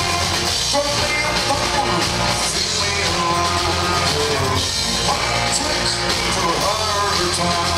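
Live band playing an instrumental passage: bowed cello over strummed acoustic guitar, electric bass and drums struck with sticks, loud and continuous.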